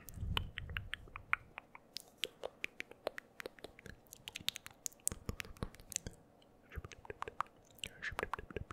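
Close-miked mouth sounds: a rapid, irregular run of wet tongue clicks and lip smacks, with a low muffled rumble at the start and a faint breathy whisper near the end.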